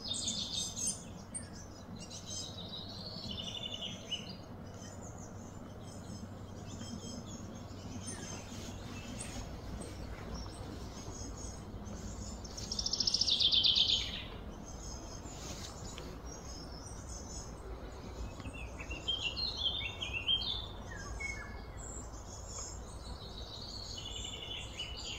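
Birds chirping and calling over a steady background hum, with one louder run of rapid high notes lasting about a second and a half near the middle.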